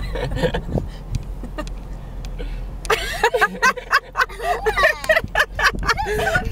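Low, steady engine rumble of a Hummer H3 heard from inside the cab as it crawls up slickrock. From about three seconds in, a busy jumble of high sliding squeaks, warbles and sharp clicks joins the rumble.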